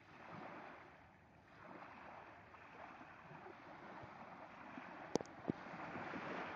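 Water washing in waves, a rushing that swells and fades, with two sharp knocks about five seconds in.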